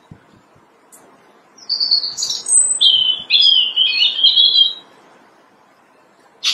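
European robin singing one warbling phrase of quick, high, varied notes lasting about three seconds, starting about a second and a half in. A single short, sharp sound comes right at the end.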